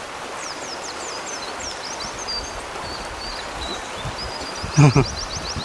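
Birds chirping in quick high notes over a steady rush of flowing water. About five seconds in comes one short, loud voice-like call.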